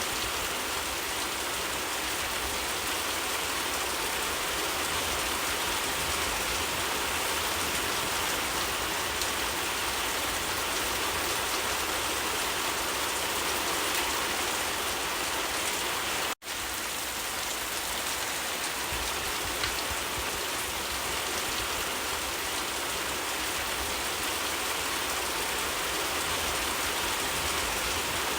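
Steady rain falling on leaves: an even hiss of many drops with no letup. The sound cuts out for a split second about sixteen seconds in, then carries on as before.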